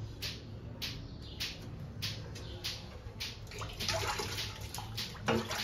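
Water running and splashing over a stainless-steel plate and sink as dishes are rinsed by hand with a sponge. The splashing gets louder and fuller about three and a half seconds in, and there is a sharp knock near the end.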